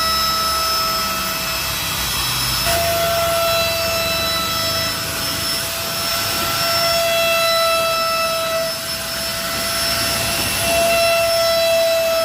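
Spray gun spraying duco lacquer: a steady hiss of air and paint with a steady high whine from the sprayer's motor running underneath.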